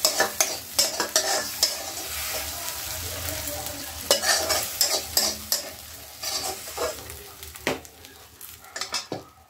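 Chopped tomatoes frying and sizzling in a steel pan, with a metal spatula stirring and scraping against the pan in frequent irregular clicks and scrapes. The sizzle eases somewhat in the second half.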